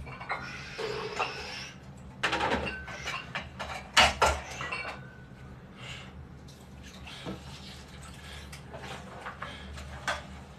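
Metal dumbbell plates clinking and knocking as a dumbbell is picked up and lifted, a handful of sharp clanks with the loudest about four seconds in.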